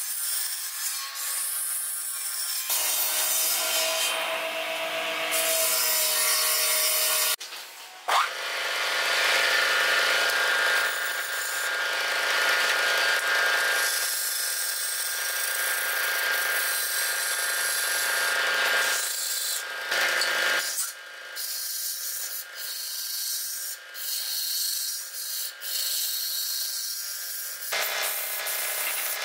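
A hand-held turning tool cutting a pale wooden blank spinning on a wood lathe: a steady scraping hiss of shavings coming off, with the lathe's steady hum under it. The cut stops and changes several times.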